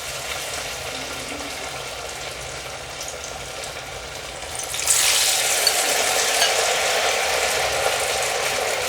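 Potato lachha pakoras frying in hot oil in a kadai, a steady sizzling that turns suddenly louder and brighter about five seconds in.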